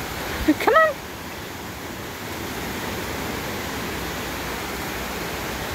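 Steady rushing of a river. About half a second in, a short, high vocal sound sweeps upward in pitch.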